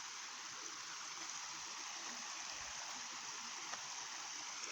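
Steady rushing of water from a large waterfall.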